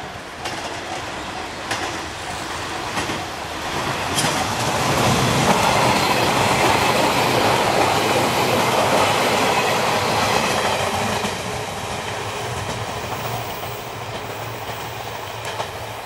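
Electric limited express train approaching and passing close by, its wheels clattering over the rail joints. It is loudest from about five to eleven seconds in, then fades as it runs away round the curve.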